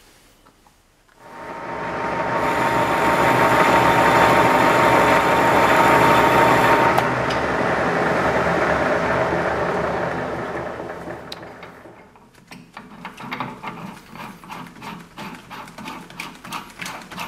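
Metal lathe motor starting about a second in and running steadily while the chuck spins a threaded workpiece against the cutting tool, then slowing to a stop. After it, a run of light metallic clicks and knocks as a boring head is handled and fitted onto the threaded holder.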